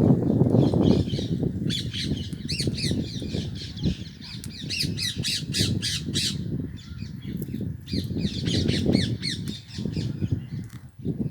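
Rose-ringed (Indian ringneck) parakeets giving shrill squawking calls in quick runs, over a low rumble that is loudest in the first second.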